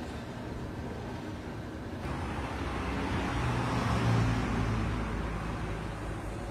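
A motor vehicle passing by: engine and road noise swell from about two seconds in, peak a little past the middle with a low engine hum, then fade.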